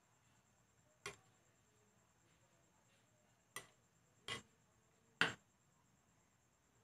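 Glass lid clinking against the rim of a glass pot at a full boil: four sharp, irregularly spaced clinks, the last the loudest.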